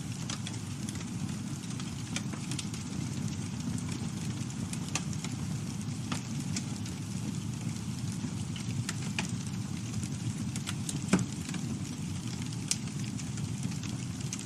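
Campfire burning with a steady low rumble of flames and scattered wood crackles and pops, one louder pop about eleven seconds in.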